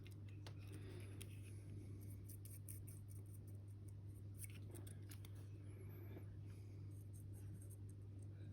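Faint light clicks and scratches from a fine paintbrush and a small plastic-and-metal miniature being handled while paint is dabbed on, over a steady low hum.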